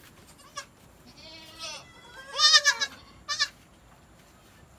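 Newborn goat kids bleating: four high-pitched bleats, short and long, the loudest about two and a half seconds in.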